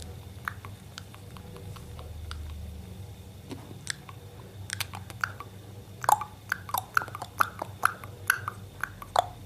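A parrot making short clicks, scattered at first, then from about six seconds in a quick, regular run of about three a second, each a brief falling blip.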